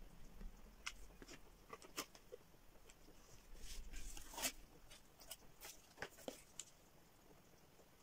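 Faint handling noises of a hot glue gun and cardboard pieces: scattered light clicks and taps, with a brief rustle about four seconds in.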